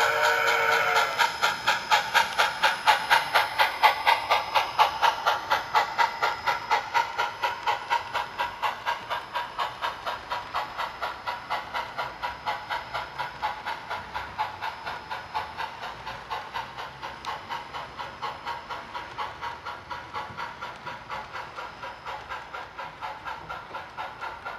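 Soundtraxx Tsunami steam sound decoder in an HO-scale Santa Fe 4-8-4 Northern model: a steam whistle ends about a second in, then a steady rhythm of exhaust chuffs at about three a second. The chuffs slowly fade as the locomotive draws away.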